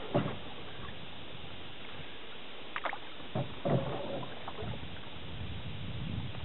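Canoe paddling on calm water: a few short paddle splashes and drips, the biggest cluster about halfway through, over a steady hiss.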